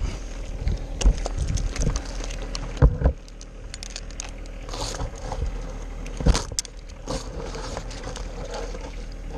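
Scattered clinks, knocks and rustling of arborist climbing and rigging gear being handled, with a sharper knock about three seconds in and another past six seconds.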